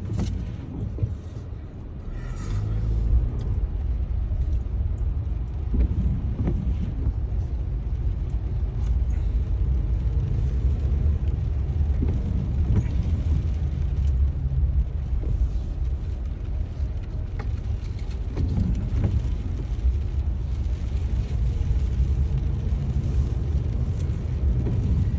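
Car engine and road rumble heard from inside the cabin as the car pulls away, growing louder about two and a half seconds in, then running steadily.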